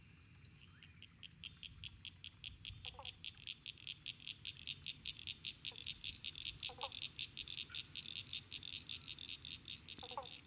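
Frog calling: a long, even train of high pulsed notes, about five a second, starting about half a second in and building in loudness. Three short lower calls come in at intervals.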